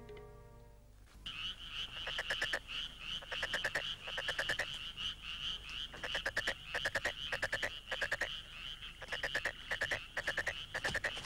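Background music fading out in the first second, then a night chorus of frogs: rapid trains of pulsed, clicking calls repeating over and over.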